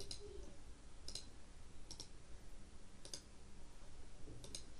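Computer mouse clicking four times, about a second apart, each click a quick double tick of button press and release.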